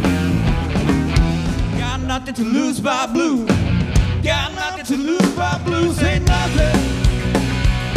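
A rock and roll band playing live: bass and drums under a wavering lead melody.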